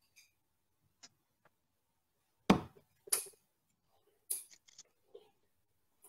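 Darts being pulled out of a dartboard and gathered in the hand: a few sharp knocks and clicks, the loudest about two and a half seconds in and the rest over the following three seconds.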